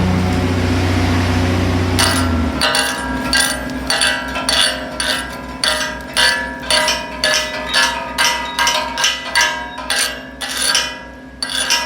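A hammer striking a steel welded plate two to three times a second, each blow ringing: slag being chipped off the weld. Before that, a steady machine hiss and hum that stops about two seconds in.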